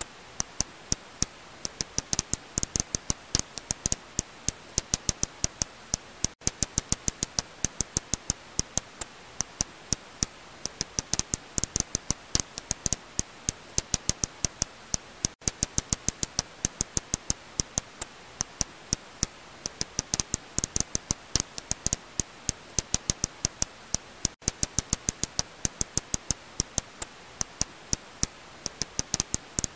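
Serotine bat calls heard as a rapid, uneven train of sharp clicks, about five a second.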